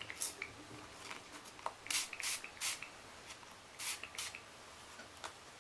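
A pump spray bottle of Color Mist dye spritzing in several short hissing spurts, with light handling clicks between them.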